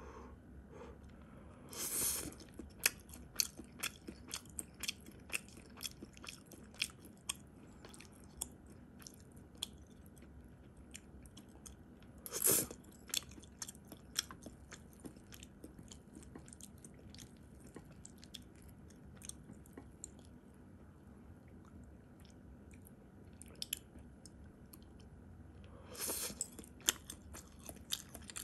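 Close-miked person chewing food, with many small sharp mouth clicks and smacks, and three louder brief bursts about ten seconds apart (about two seconds in, near the middle, and near the end).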